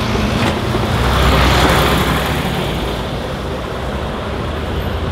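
Street traffic: a double-decker bus's engine running as it pulls past close by, loudest a second or two in, over the steady rumble of cars and buses.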